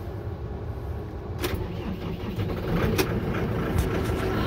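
Tractor engine running cold, heard from inside the cab, with a few sharp clicks and the engine getting a little louder about three seconds in.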